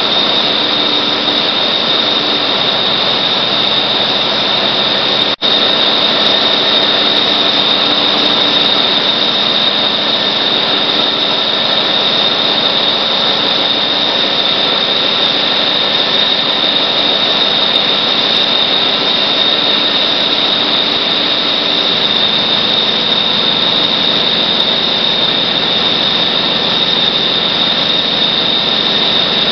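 Loud, steady machinery noise in a large engine hall: a drone with a constant high-pitched whine running through it. The sound drops out for an instant about five seconds in.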